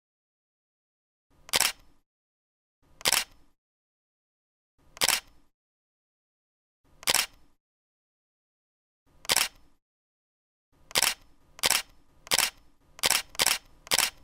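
Camera shutter click sound effects, single sharp clicks about every two seconds, then coming faster, roughly two a second, near the end.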